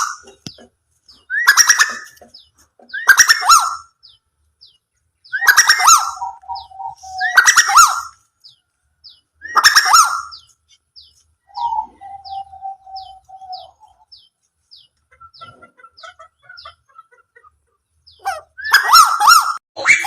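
Tuwu bird giving loud, harsh calls, each about half a second to a second long, repeated every couple of seconds with a long pause near the end. In the gaps there is a faint run of short high notes about twice a second, and a steady mid-pitched tone is held twice for a second or two.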